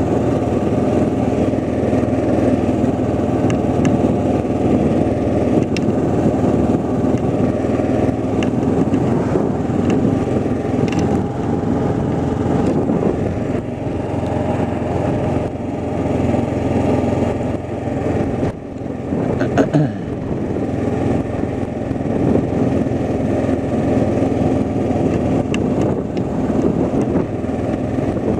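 Engine running steadily, a constant low hum with no change in speed. A short dip and a brief knock come about two-thirds of the way through.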